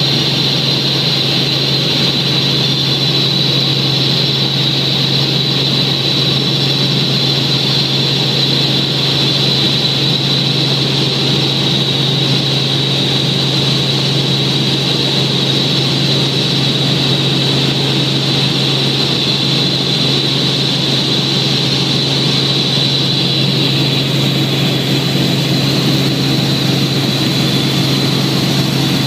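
Helicopter engine and rotor noise in flight, heard from inside the cabin: a steady, unchanging loud drone with a low hum and a high whine over it.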